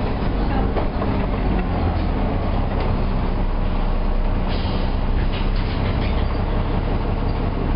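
Alexander Dennis Enviro400 double-decker bus running, a steady low engine drone with rattles and clicks, and a short hiss about four and a half seconds in.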